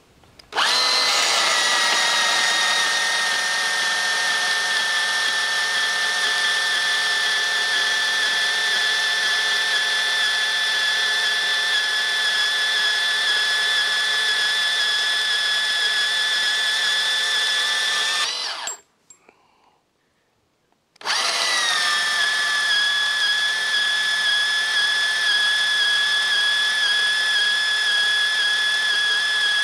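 Makita 18V cordless portable bandsaw with a 12–14 TPI Milwaukee thin-metal blade cutting metal: a steady high motor whine that settles slightly lower in pitch just after it starts. It stops for about two seconds some 18 seconds in, then starts again and runs on.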